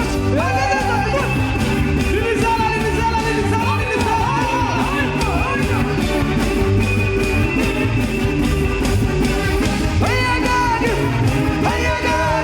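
Gospel praise music played by a band, with a steady drum beat and bass and a singer's voice gliding over it.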